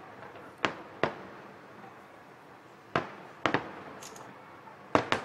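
Aerial fireworks shells bursting: seven sharp bangs in irregular groups of two or three, each with a short decaying tail.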